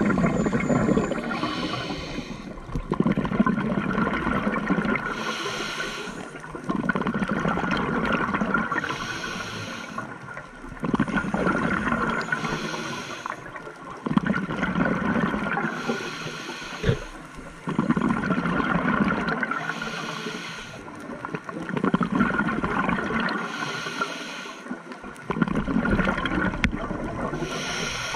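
Scuba diver breathing through a regulator underwater: a short hiss on each inhale, then a gurgling rush of exhaled bubbles, repeating about every three and a half seconds. A faint steady tone runs underneath.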